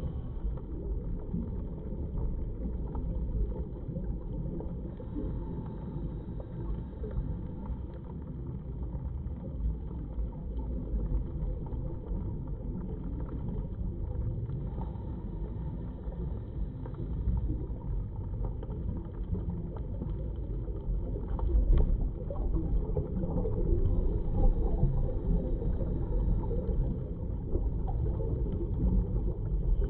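Steady, muffled low underwater rumble picked up by a camera held underwater, growing somewhat louder about two-thirds of the way through.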